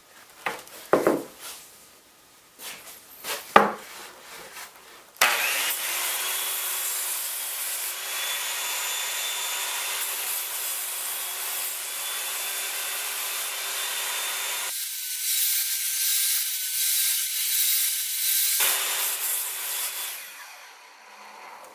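A few wooden knocks, then a circular saw mounted blade-down in a sliding sled comes in abruptly about five seconds in. It runs and cuts across a log's end grain, shaving off the high spots to flatten the surface, a steady whine over the cutting noise. It fades out near the end.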